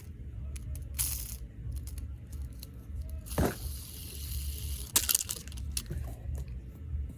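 Small plastic fidget toys being handled and set down: scattered clicks and light clatter, with a short rustle a little past the middle.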